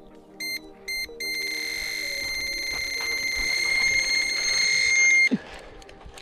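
Electronic fishing bite alarm sounding a screaming run as a hooked fish takes line: two quick beeps, then a continuous high-pitched tone for about four seconds that cuts off suddenly.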